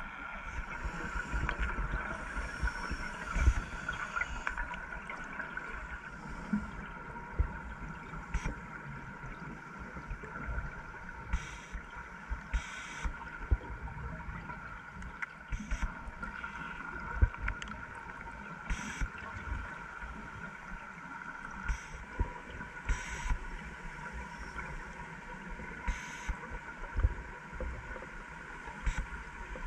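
Underwater sound recorded by a diver's camera: scuba regulator breaths, with a short hiss every few seconds and low bubble rumble and thumps, over a steady hum.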